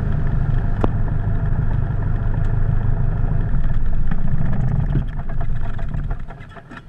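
Cessna 172's piston engine running at idle, then shut down: the engine note dies away about six seconds in as the propeller winds down, followed by a few clicks.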